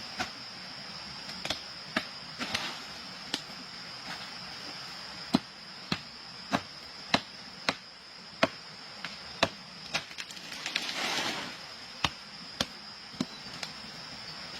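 A series of sharp knocks or chopping strikes, sparse at first and then coming regularly, about one to two a second. Beneath them runs a steady high insect drone, with a brief rustling swell about two-thirds of the way through.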